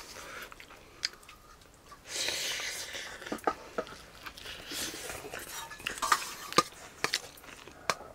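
A metal spoon scraping and clinking against a stainless steel plate as it scoops rice and greens, with several sharp clinks spread through.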